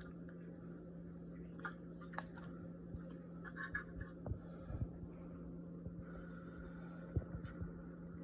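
Faint scattered taps and light clicks of small objects being handled, over a steady low electrical hum.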